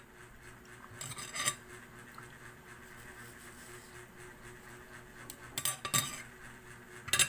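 Spoon scraping and clinking on a dish while scooping ripe mango flesh: a short run of scrapes about a second in and several more near the end.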